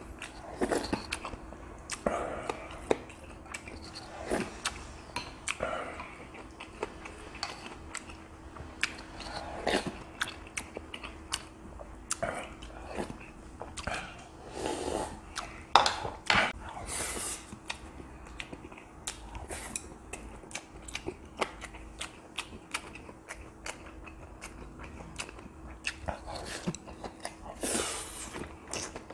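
Close-miked eating: chewing and mouth sounds, with spoon and chopsticks clicking against bowls. There are longer slurps as he drinks from a bowl around the middle and again near the end, over a faint steady hum.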